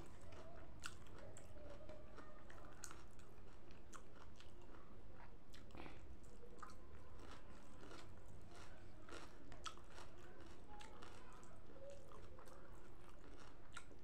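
A person chewing and crunching food close to the microphone, with many irregular wet clicks and mouth sounds, and fingers picking through a plate of salad.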